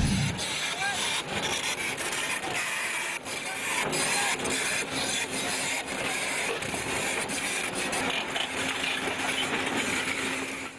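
Steel tracks of a Hyundai 225LC-7 crawler excavator grinding and scraping over loose rock as it climbs a rubble slope, with many sharp knocks and cracks as stones shift and break under the track plates.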